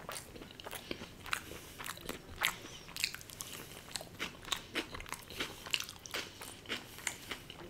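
A person chewing and biting food close to the microphone: irregular sharp mouth clicks, a few each second.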